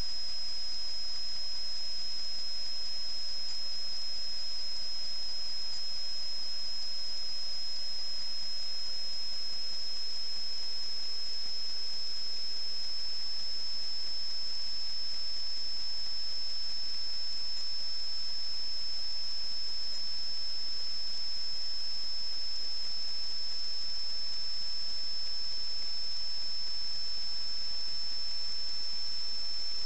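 Steady high-pitched electronic whine over a constant hiss, the background noise of a sewer inspection camera system's recording. A faint lower tone slowly falls in pitch over the first half.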